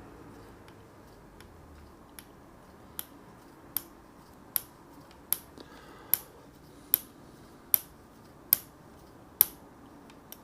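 A steady series of about ten sharp clicks, a little under a second apart, growing louder, as a screw is turned home by hand into an RC buggy's plastic shock part.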